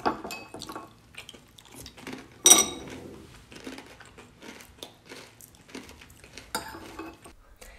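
Spoons clinking and scraping in ceramic cereal bowls, with scattered small clicks and one louder clink about two and a half seconds in.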